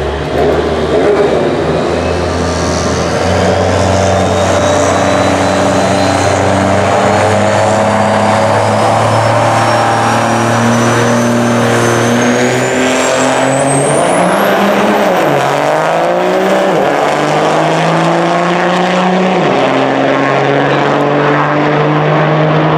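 A supercharged Dodge Demon V8 and a triple-turbo Cummins diesel pickup running loudly at the start line of a quarter-mile drag race, while a high whine climbs steadily in pitch for over ten seconds. About fourteen seconds in, the engine note dips and climbs again as the two launch and pull away down the track.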